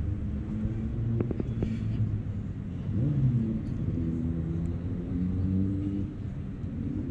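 Low rumble of city traffic, with a vehicle engine's hum swelling through the middle and easing off about six seconds in.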